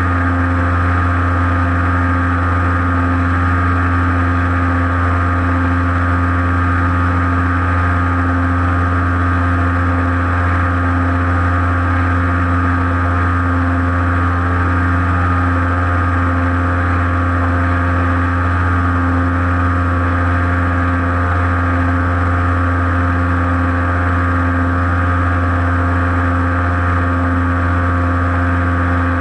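RC airplane's motor and propeller droning at a steady cruise throttle, heard through the onboard camera's microphone, with an even pitch that does not change.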